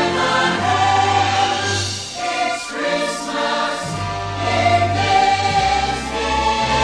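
Orchestral music with a choir singing sustained notes over a moving bass line.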